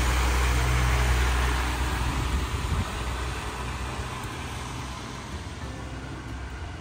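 A motor vehicle's engine idling: a low steady rumble that fades away about three seconds in, leaving a faint hiss of street noise.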